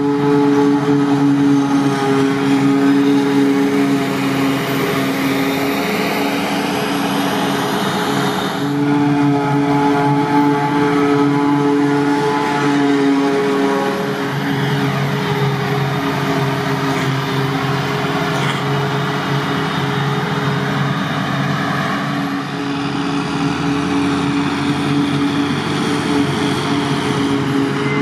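Claas Jaguar forage harvester and John Deere tractors at work in a grass field: diesel engines running steadily under load, with the hiss of chopped crop. The sound changes a few times where the shots cut.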